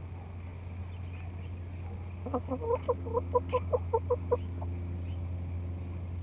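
A chicken clucking: a quick run of about a dozen short clucks, starting about two seconds in and lasting about two seconds.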